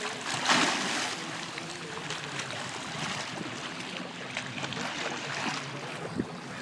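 Pool water splashing and sloshing as a swimmer strokes and kicks through combat sidestroke, with a louder splash about half a second in.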